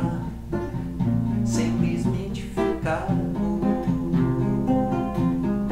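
Electrified Yamaha GL1 guitalele, a small six-string nylon-strung guitar, strummed in a samba-bossa rhythm, over the light percussion of an Alesis SR-18 drum machine.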